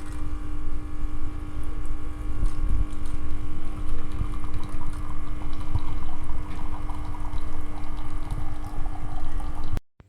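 Beko CaffeExperto bean-to-cup coffee machine running, a steady pump hum with liquid pouring, as when dispensing coffee; it cuts off abruptly near the end.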